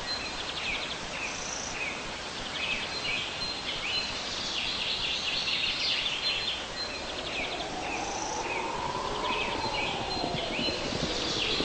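Countryside ambience: birds chirping and trilling over a steady hiss, with a slow tone that rises and then falls in the second half.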